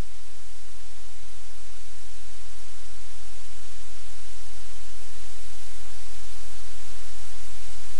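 Steady static-like hiss with a low hum underneath, slowly getting louder.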